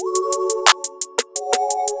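Electronic background music: a fast ticking hi-hat beat over sustained synth chords, with a snare hit about two-thirds of a second in.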